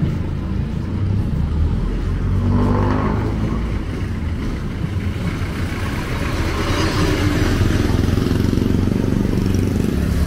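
Motor vehicle engines in street traffic, with one engine briefly revving about two to three seconds in and a vehicle passing close in the second half.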